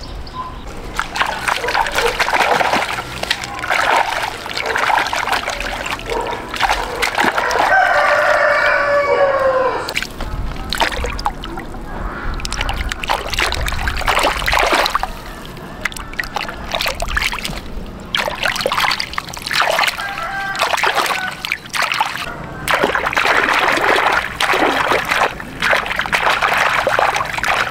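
Water splashing and sloshing in irregular bursts throughout, with a rooster crowing once about eight seconds in.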